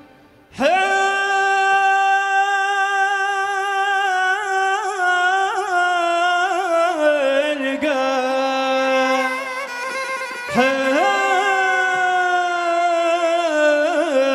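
A male singer's solo melismatic vocal line: long held notes with quick ornamental turns, entering about half a second in, breaking briefly and coming back in with an upward scoop about ten and a half seconds in.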